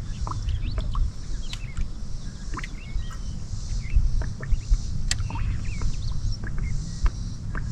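Birds chirping with many short calls and quick up-and-down notes, over a steady low rumble and a high hiss that swells and fades about every second and a half.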